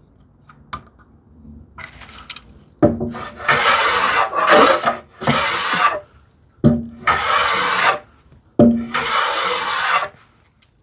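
Small hand plane cutting a chamfer along the edge of a solid cherry board: a few rasping strokes, each one to two seconds long with short pauses between, starting about three seconds in.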